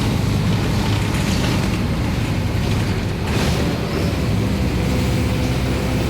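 City bus driving along the road, heard from the driver's seat: a steady low engine drone mixed with road and cabin noise.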